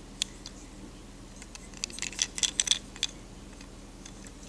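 Small clicks, then a short burst of clicking and rattling about two seconds in, as a wooden toy train engine is turned over in the fingers.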